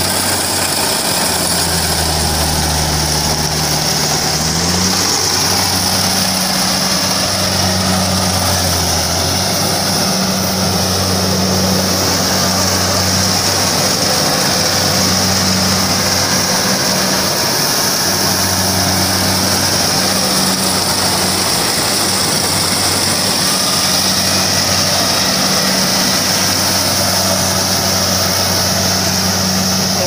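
Kubota DC-70 rice combine harvester running under load as it cuts and threshes rice: a steady diesel engine drone with a high hiss over it. The engine pitch rises briefly about four seconds in.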